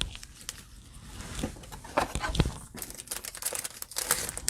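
Crinkling of a cellophane trading-card pack wrapper and cards being handled, in short irregular crackles and clicks.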